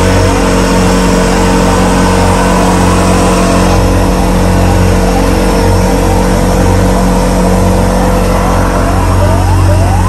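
Small passenger motorboat's engine running steadily with a constant hum. In the last few seconds a run of short rising chirps, about two a second, rides over it.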